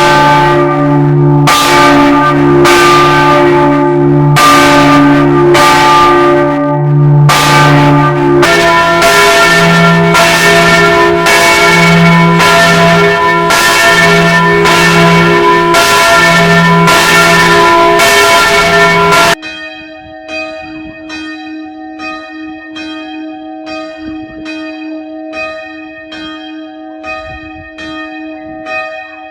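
Church bells ringing loudly, about one stroke a second, with long overlapping hum tones; the pitch changes to a different bell about eight seconds in. Near twenty seconds the sound drops suddenly to a quieter, higher-pitched bell struck about once a second.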